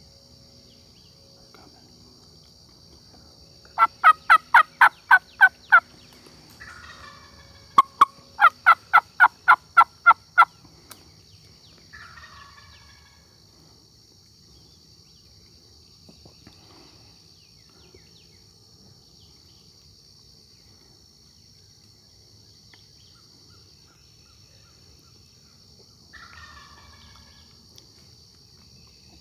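Two loud, close runs of hen-turkey yelps, about eight and then ten notes at some four a second. Each run is answered by a fainter, distant wild turkey gobble, and a third distant gobble comes near the end.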